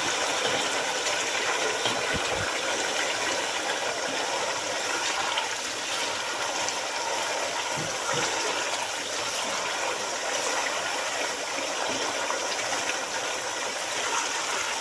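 Tomato paste and onions frying in hot palm oil in a cooking pot, sizzling steadily, with a couple of faint knocks.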